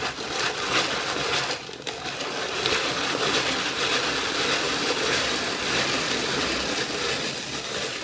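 Walnuts being ground in a hand-cranked rotary drum grater: a steady grating noise as the crank turns the drum and the nuts are pressed against it, grinding them finely.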